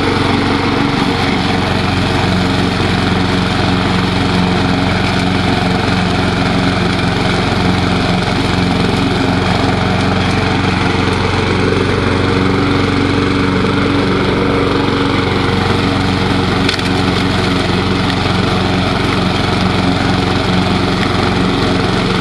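Propane-fuelled single-cylinder Briggs & Stratton engine on a Craftsman walk-behind lawn mower running under load while cutting thick grass. The engine speed holds nearly steady, dipping only slightly, which shows the propane conversion keeping its power under load.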